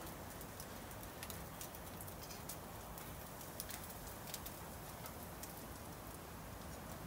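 Wood fire crackling and bacon sizzling in a wire grill basket held over the embers: a faint steady hiss with scattered sharp crackles and pops.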